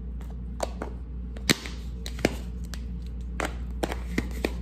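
Sharp plastic clicks and taps from a lid being pressed onto a plastic container and the container or baby bottle being handled on a countertop. There are about seven separate clicks, the loudest a snap about a second and a half in, over a steady low hum.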